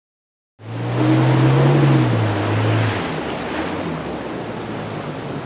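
Starting about half a second in, a small skiff's outboard motor runs at speed through surf, its pitch rising slightly, then dropping and fading out about three seconds in, over a loud rush of foaming water. The water noise carries on steadily after the motor drops away.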